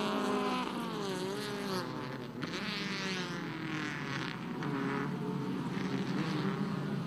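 Several compact four-cylinder race cars' engines running hard through the corners, their pitch dipping about a second in and then climbing and shifting as they brake and accelerate.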